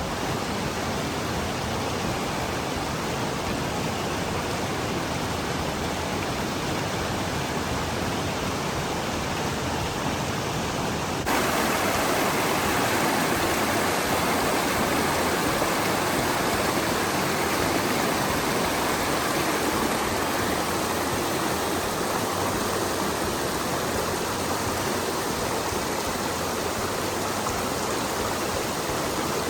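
Waterfall: a steady rush of falling water that suddenly becomes louder and fuller about eleven seconds in.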